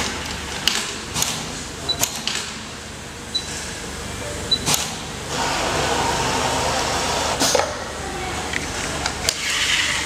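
Automatic pattern sewing machine at work: a steady running noise, louder for a few seconds in the middle, broken by sharp mechanical clicks every second or two. A short rustle near the end.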